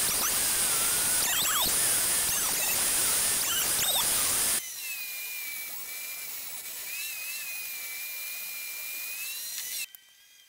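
Central Machinery 12-inch benchtop thickness planer running and planing a board: a loud, high whine over a rush of noise, its pitch wavering as the cut loads it. About four and a half seconds in this gives way to the quieter, steady whine of a table saw ripping a narrow strip, which stops just before the end.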